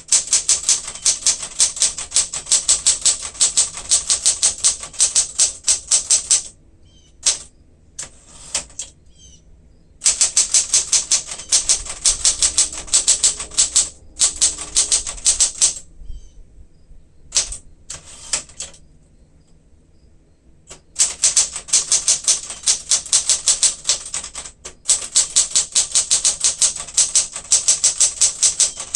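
1967 Smith-Corona Super Sterling manual typewriter being typed on: fast, even runs of key strikes at several a second, broken twice by pauses of a few seconds.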